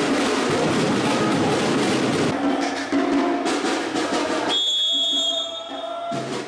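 Background music with a drum beat. It drops out briefly about two-thirds of the way through, leaving a short high steady tone, then comes back.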